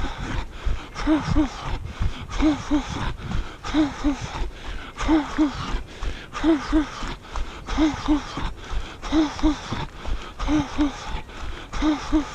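A runner's rhythmic breathing: pairs of short voiced puffs about every second and a half, in step with the dull thuds of footfalls.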